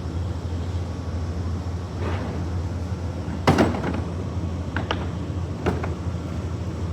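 Tools and copper pipe being handled: a few sharp knocks and clicks, the loudest about three and a half seconds in, over a steady low hum.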